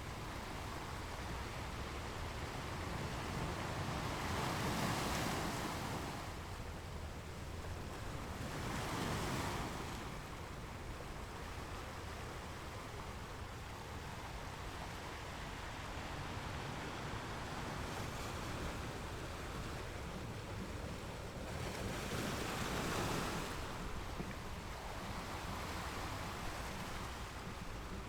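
Ocean waves breaking and washing ashore over a steady background rush of surf, with three louder surges of breaking water.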